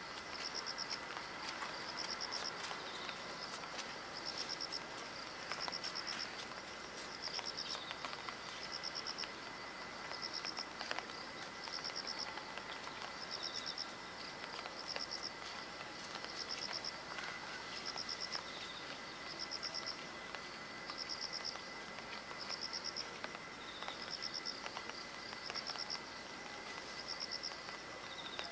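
Insects calling in summer: a short pulsed buzz, high-pitched, repeating about every second and a half, over a steady high whine and a faint outdoor background.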